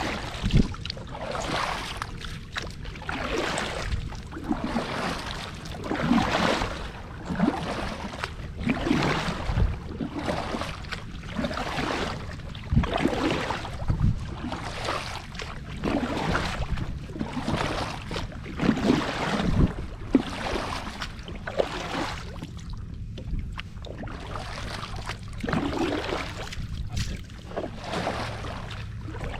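Water swishing and splashing against a kayak hull, in irregular surges every second or two, each with a low thump.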